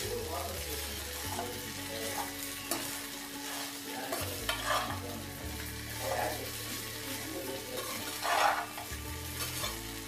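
Steel spoon stirring and scraping wet poha (flattened rice) around a stainless steel pan in uneven strokes, over a sizzle from the hot pan; the strongest scrape comes near the end.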